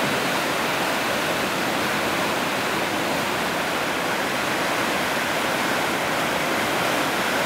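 Steady rushing of a river in flood, fast high water running without a break.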